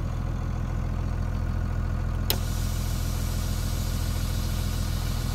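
Cummins 5.9 24-valve turbo diesel idling. About two seconds in, a click, and compressed air starts hissing steadily out of the onboard air tank's purge, a quarter-inch port line, as the tank pressure bleeds down.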